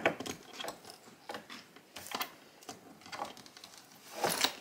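Small objects being handled and moved about during a search: irregular light clicks and knocks, with a louder rustle near the end.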